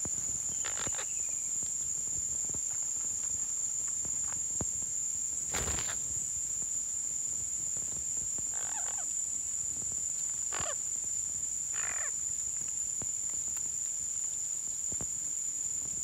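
A steady high-pitched insect drone, with three short, harsh squawks from green parrots in the second half and a single sharp click about six seconds in.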